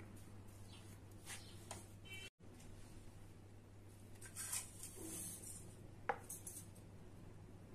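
Faint scraping and light clinks of a spoon and stainless-steel bowls as a dry oat-flour mix is stirred and then tipped into a second steel bowl, with one sharper clink about six seconds in. A steady low hum lies underneath.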